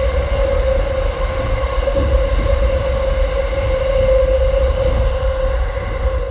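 A moving train running steadily: a continuous low rumble with a steady, even-pitched whine over it.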